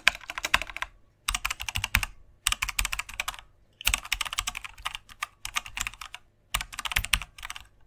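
Computer keyboard typing sound effect: rapid key clicks in runs of about a second, broken by short pauses.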